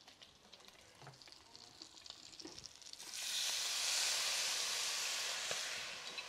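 Pork ribs browning with a faint sizzle in a clay cazuela. About three seconds in, a sudden loud hiss and sizzle as water mixed with ground allspice, cloves and salt is poured from a molcajete onto the hot meat. The hiss eases off near the end.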